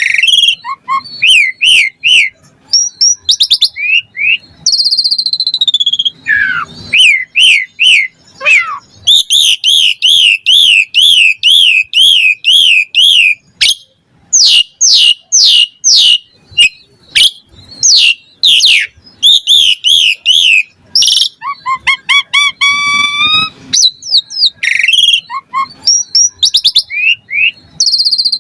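Asian pied starling (jalak suren) singing loudly and almost without pause: a varied stream of clear whistles, fast rising-and-falling trills and rapid repeated notes, its song full of borrowed phrases.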